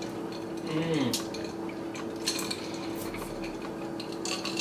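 Cutlery clinking and scraping against plates while eating, in a few short scattered clusters.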